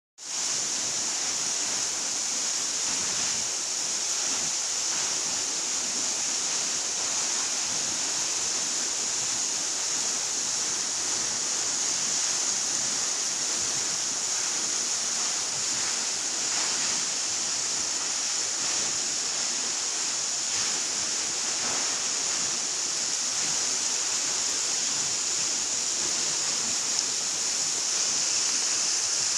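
Waterfall rushing steadily, a constant hissing roar of falling water.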